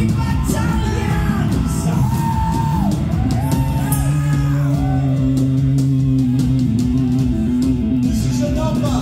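Heavy metal band playing live in a hall: distorted electric guitar, bass guitar and drums with cymbal crashes, and a man singing through the first half. From about four seconds in the band holds one long low note.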